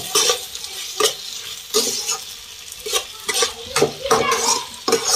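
Metal spatula scraping and knocking against a frying pan while stirring sautéed onions and capsicum in sauce, in irregular strokes about once or twice a second, over a steady sizzle of the frying vegetables.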